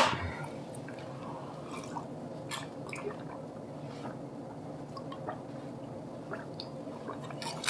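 Faint mouth sounds of drinking makgeolli: quiet wet swallowing, with a few small scattered clicks.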